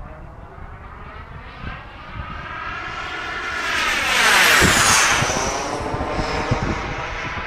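Radio-controlled model jet's turbine engine whining at high power on a fly-by: it grows louder to a peak about four and a half seconds in, its pitch falls as it passes, then it eases off.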